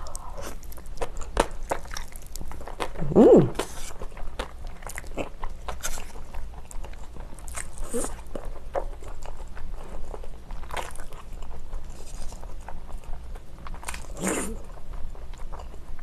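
Close-miked wet chewing of spicy bibim-naengmyeon cold noodles coated in thick chili sauce, with many small mouth clicks and several brief slurps as noodles are drawn in.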